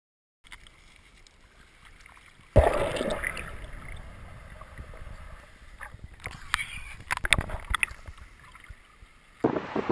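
Water sounds picked up by a camera underwater as a man swims: a sudden loud rush about two and a half seconds in that slowly fades, then gurgling with scattered clicks and knocks.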